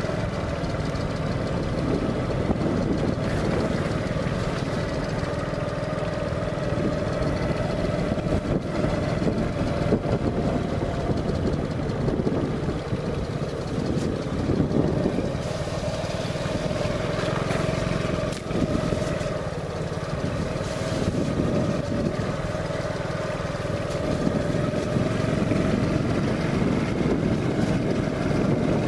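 Motorbike engine running steadily while riding, a constant low rumble with a steady whine above it.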